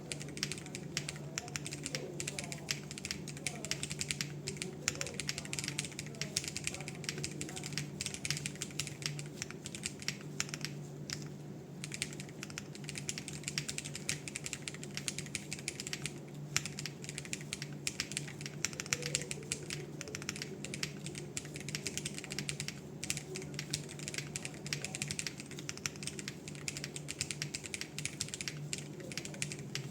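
Continuous typing on a foamless hall effect mechanical keyboard: Rule60 V3 case, Sayodevice K64H3MZ PCB, Owlab Ti HE magnetic switches on a PC plate, ABS doubleshot keycaps. Rapid key clicks with a brief pause about eleven seconds in, picked up by a phone mic.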